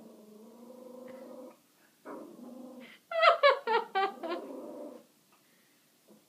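A six-month-old Yorkshire terrier puppy growling at a dog on the TV screen: a long low growl, then a second shorter one. About three seconds in it breaks into a quick run of about five high-pitched yaps over continued growling, then falls quiet.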